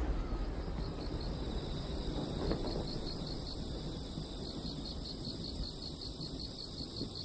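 Night insects chirping in a steady, evenly pulsing trill. The rumble of a firework burst dies away in the first second, and a faint thump comes about two and a half seconds in.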